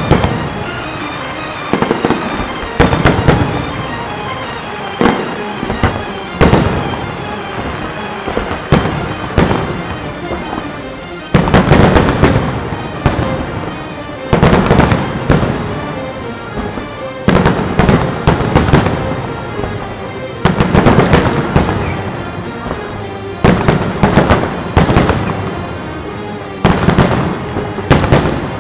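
Fireworks display: aerial shells bursting one after another every second or few, several with crackling tails, with a louder volley about a third of the way in. Music plays underneath.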